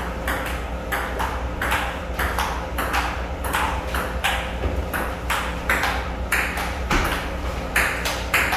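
Table tennis rally: the plastic ball clicks sharply about three times a second as it bounces off the table and the paddles in turn, over a steady low hum.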